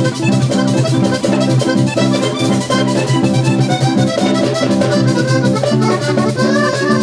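Hohner 'Rey del Vallenato' three-row button accordion playing a fast vallenato melody in quick note runs, over bass and percussion keeping a steady beat.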